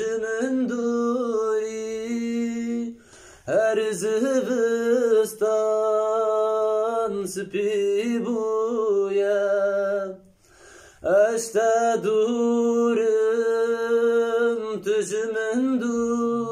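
A man singing solo and unaccompanied, holding long notes that waver and slide between pitches. He breaks off briefly for breath about three seconds in and again about ten seconds in.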